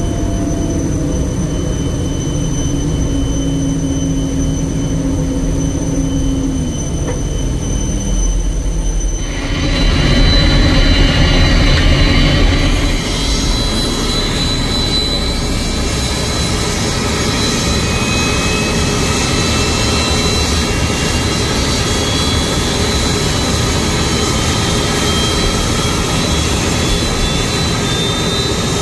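Boeing 747-400 jet engines during pushback and engine start: a low, steady engine hum for about nine seconds, then an abrupt change to louder jet-engine noise whose high whine slowly rises in pitch as an engine spools up.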